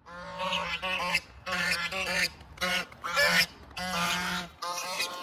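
Domestic fowl calling in a run of about eight short, honking calls, with a steady low hum underneath.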